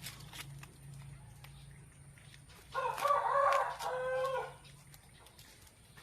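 A rooster crowing once, about three seconds in, a call of nearly two seconds that ends on a falling final note.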